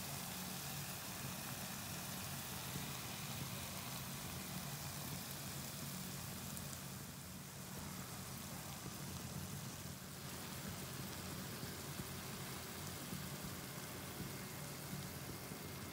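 Faint, even sizzle of a potato and egg mixture cooking in a nonstick frying pan on an electric hob, over a steady low hum.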